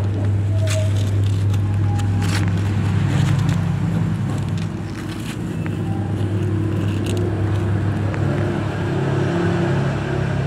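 Mother cat purring steadily and loudly while nursing her newborn kittens, a low hum that swells and eases every few seconds.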